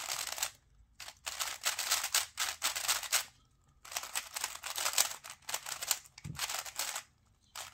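A brand-new Gan XS speedcube being turned for the first time: quick runs of plastic layer-turn clacking in three bursts, broken by short pauses. The cube is still a little tight out of the box.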